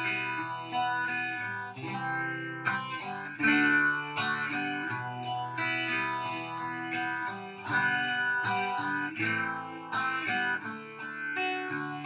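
Acoustic guitar played solo, an instrumental passage of plucked chords and single notes ringing on, with a fresh attack every half second or so.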